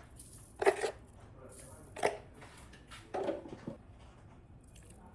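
A few short knocks and taps of a plastic spoon and containers while sugar and seasonings are spooned into a plastic blender jug, the loudest a sharp tap just under a second in.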